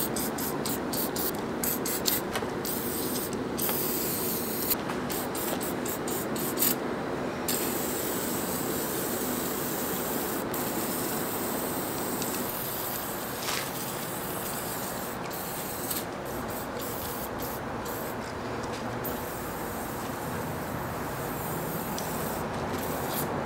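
Aerosol can of penetrating oil spraying at close range onto rusted, seized lathe parts. It hisses in repeated short bursts with brief pauses, then runs steadier in the second half.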